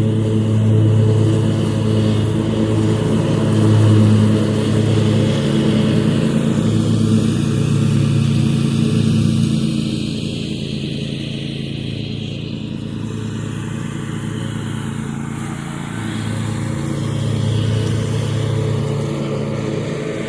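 Zero-turn lawn mower engine running steadily under mowing load. It grows somewhat quieter about halfway through and louder again near the end.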